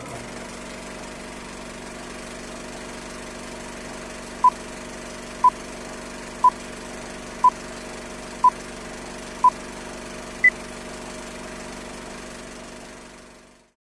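Film-leader countdown sound effect: the steady mechanical whir of a running film projector, with six short beeps a second apart and then a single higher beep. The whir fades out near the end.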